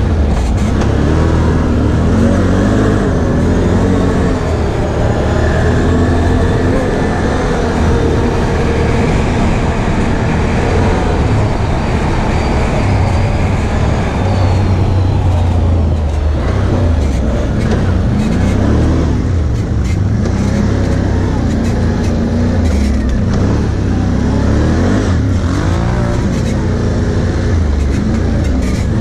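Can-Am ATV's V-twin engine running under throttle while riding a dirt track, its pitch rising and falling again and again as the rider opens and closes the throttle.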